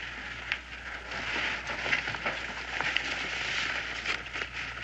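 Soft crackling and rustling of a paper letter being unfolded and handled, a few faint clicks over a steady hiss.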